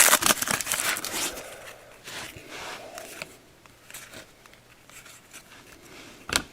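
Crinkling of a trading-card pack wrapper in the first second or so, then quieter handling of the cards as they are slid and flipped, with a sharp click near the end.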